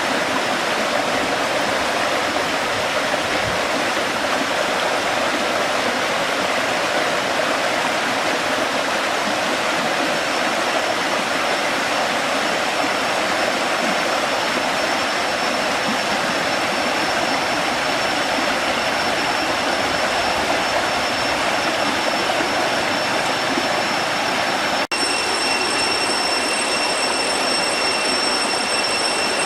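Waterfall: a steady rush of falling water. After a short break near the end, a steady high-pitched whine sounds over the water.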